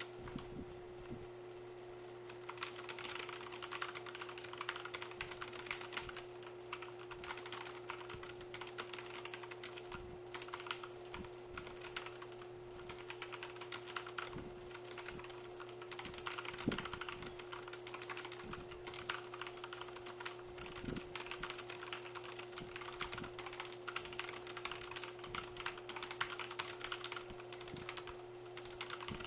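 Fast, continuous typing on a MageGee MK1 tenkeyless mechanical keyboard with Jixian red switches, linear MX-red clones: a dense clatter of keystrokes starting about two seconds in, with a few louder single strokes, the loudest about halfway through.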